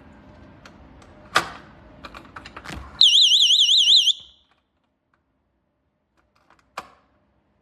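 GE personal security window/door alarm sounding its high, rapidly warbling siren for about a second before cutting off abruptly. A few sharp clicks come just before it and one more near the end.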